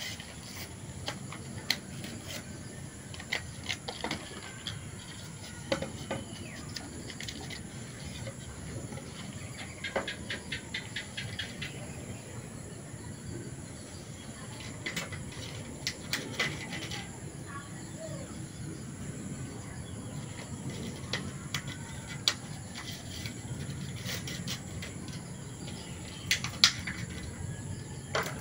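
Scattered knocks, clicks and rustling from unwrapping a pack of steel epoxy glue and setting a wooden board down on a wooden workbench, with the loudest knock near the end. Under it runs a steady background of insects, with occasional bird calls.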